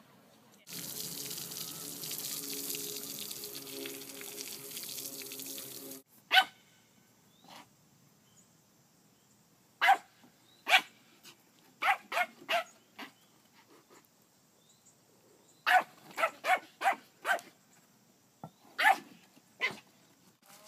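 Small dog yapping at a horse: many sharp, short, high barks, mostly in quick runs of two to five. Before the barking starts, about five seconds of loud steady hissing noise.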